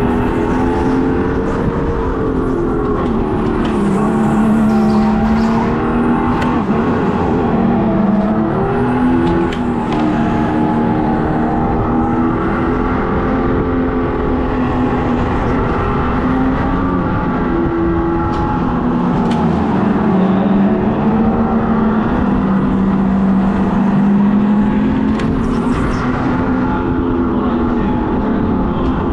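Piped-in engine sound from a speaker behind a go-kart's seat, its pitch rising and falling continually with the throttle.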